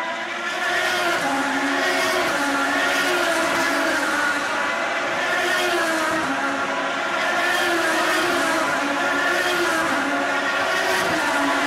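Engines of several IndyCar race cars, 3.5-litre Honda V8s, running at racing speed, their pitch repeatedly rising and falling as the cars accelerate and brake.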